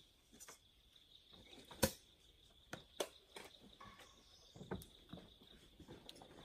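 Faint, steady high-pitched insect drone with a few scattered sharp clicks; the loudest click comes about two seconds in.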